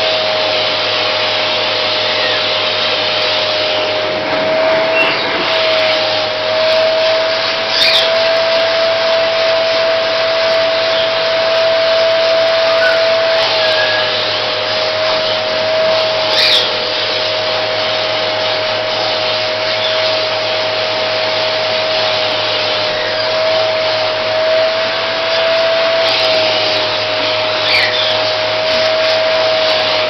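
Upright vacuum cleaner running through its hose wand as the nozzle is brushed over a cat's fur: a steady whine over rushing air. The whine dips slightly in pitch a few times, with a few faint clicks.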